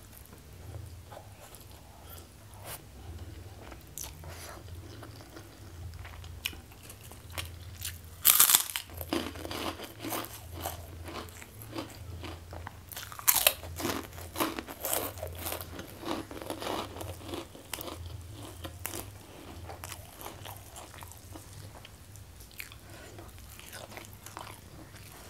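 Close-miked biting and crunching of a crispy cracker, then chewing, with the loudest crunches about a third of the way in and again about halfway. A low steady hum runs underneath.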